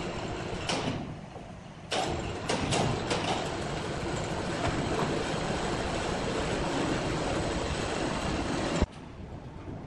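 Sawmill machinery running: a few knocks, then from about two seconds in a steady rattling noise that stops abruptly near the end.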